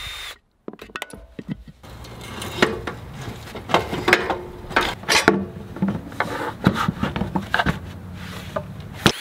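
A cordless drill briefly spins a socket on a bolt at the start and again near the end. In between come irregular clanks, knocks and scraping as metal and plastic parts are pulled off an old ATV frame by hand.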